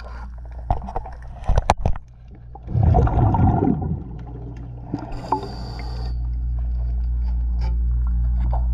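Underwater sound of a diver's regulator: a loud gush of exhaled bubbles about three seconds in and a hiss of inhaled air around five seconds, with a few sharp knocks before them. A steady low drone builds from about six seconds to the end.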